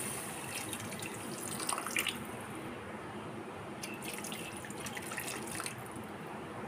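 Water being poured steadily from a bowl into a metal kadai holding fried dalia (broken wheat) and vegetables, with a few light clicks along the way.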